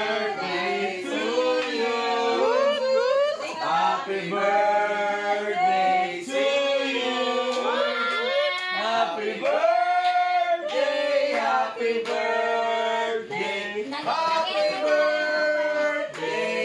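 A group of people singing a birthday song together, many voices at once, to someone being presented with a cake.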